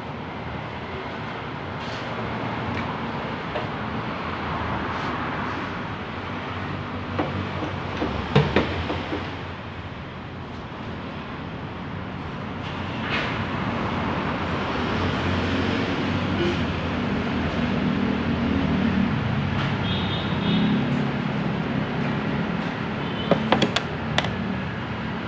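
Steady traffic and workshop hum, with a sharp knock about eight seconds in and a quick cluster of knocks near the end as a Mini Cooper's bonnet is worked open and shut.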